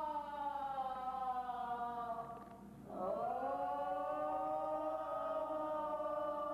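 Wordless chanted vocal lament. One long note slides slowly downward and fades out about two and a half seconds in, then a new note swells in about three seconds in and is held steadily.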